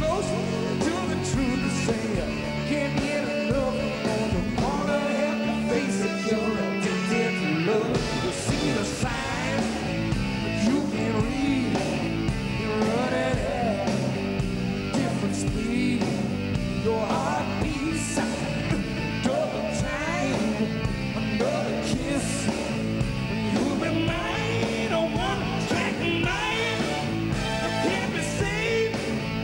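Live rock band performance with a male lead vocal over electric guitar, drums and keyboards, playing steadily.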